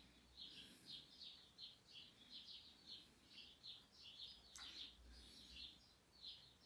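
Cockatiel chicks softly chirping, a steady run of short high peeps about two or three a second, with one faint click about four and a half seconds in.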